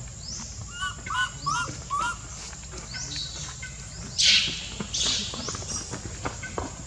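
Birds calling outdoors: a short rising chirp repeats about once a second, three quick warbling calls come a second or two in, and a louder harsh cry comes about four seconds in.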